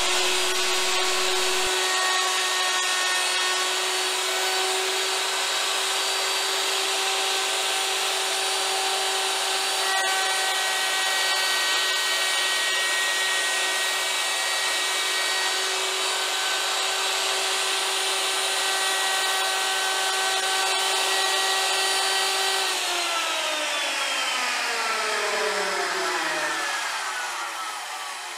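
Hand-held electric wood router running at full speed with a steady high whine as it makes a pass cutting a spline slot in a chair leg through a guide jig. About 23 seconds in it is switched off and its whine falls steadily in pitch as the motor spins down.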